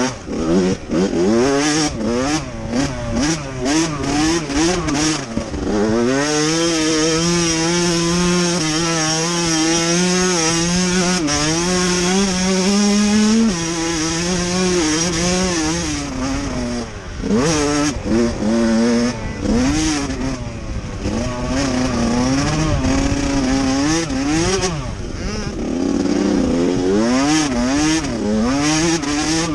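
Motocross dirt bike engine heard on board while racing, revving up and dropping back again and again as the rider works the throttle and gears. It holds one long slowly rising pull through the middle.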